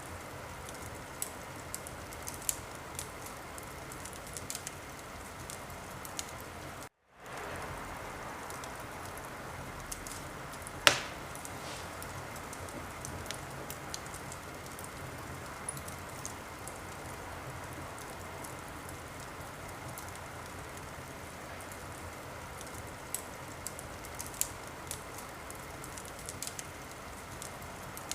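Wood fire crackling in a fireplace: a steady hiss with scattered small pops and one loud crack about eleven seconds in. The sound drops out completely for a moment about seven seconds in.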